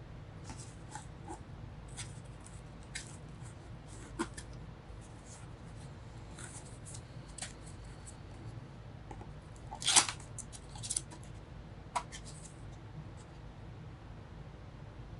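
Scattered light clicks and knocks from handling PC parts while getting the stock CPU cooler ready to fit, with the loudest knock about ten seconds in.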